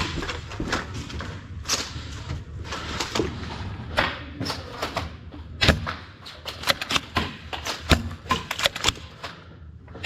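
Nerf foam-dart blasters firing and darts striking hard surfaces: a string of sharp clicks and thuds, coming thick and fast in the last few seconds.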